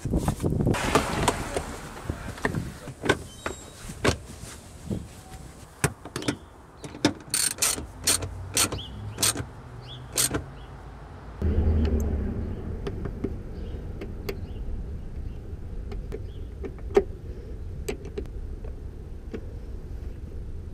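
Hands refitting a second-generation Toyota Prius's rear interior trim and seat: rustling, knocks and clicks of plastic panels and fasteners, with a run of about nine sharp clicks between roughly seven and ten seconds in. About halfway a steady low rumble begins, with only occasional clicks after it.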